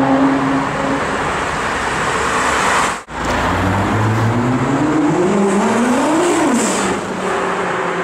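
Sports car engines: first one running at steady revs, cut off abruptly about three seconds in, then another engine revving up, rising in pitch for about three seconds before its pitch drops sharply, over steady street traffic noise.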